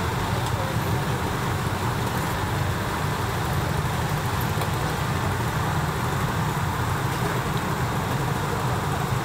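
Steady low rumble of street background noise, even throughout with no distinct knocks or voices.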